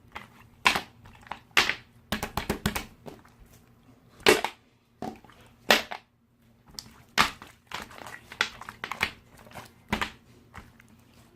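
Clear slime with crunchy pearl beads pressed and squeezed by hand, giving sharp irregular pops and crunches about once a second.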